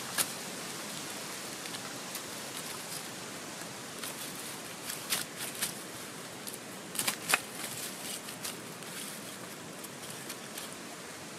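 A few sharp, short wooden knocks and snaps over a steady faint hiss, the loudest in pairs about five and seven seconds in: sticks being handled and worked while splitting wood with a knife.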